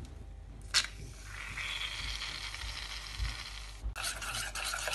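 Aerosol can of shaving foam dispensing: a click, then a steady hiss for about two and a half seconds that cuts off abruptly. Near the end a rubbing, stirring sound begins as the mixture is mixed.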